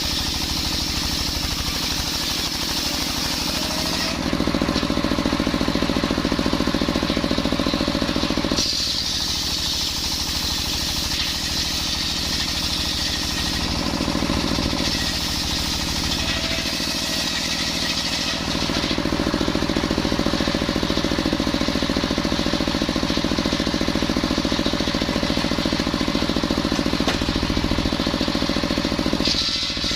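Machine-driven circular saw running while it cuts coconut wood, a continuous mechanical sound that shifts in level and pitch several times, growing louder for a few seconds about four seconds in and again for most of the second half.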